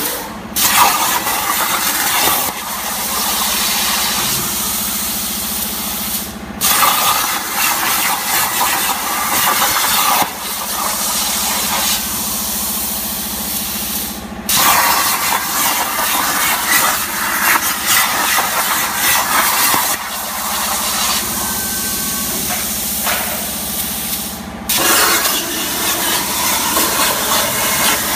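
CNC plasma cutter's torch cutting steel plate: a loud, steady hissing rush from the plasma arc. It stops for a moment four times, just after the start and about 6, 14 and 25 seconds in, starting again each time, over a steady low hum.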